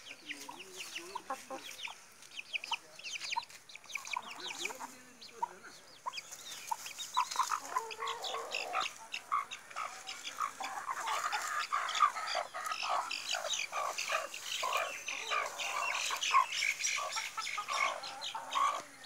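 Chickens clucking, with the thin high cheeping of a chick, the calls coming thicker and louder from about seven seconds in.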